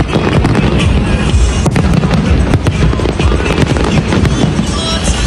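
Fireworks going off in rapid, irregular bangs and crackles, mixed with loud music from the fireworks show's soundtrack.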